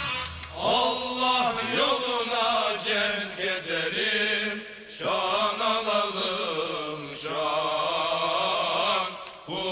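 Soundtrack music: a solo voice chanting in long, wavering held phrases, with a short break about five seconds in.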